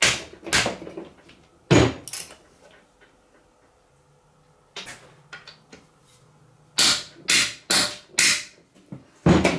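Hammer blows on a stuck steel bolt in an aluminum transmission case, struck to shock it loose: four sharp strikes about half a second apart, then one more near the end. A few similar sharp knocks come in the first two seconds.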